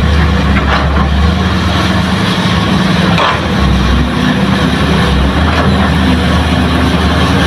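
Diesel engines of hydraulic excavators and a dump truck running together in a steady, loud low drone. The engine note shifts twice as the loaded truck pulls away, with a couple of short higher-pitched noises about a second and about three seconds in.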